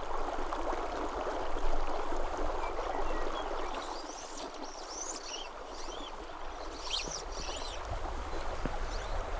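Small spring-fed desert creek running steadily through a shallow riffle.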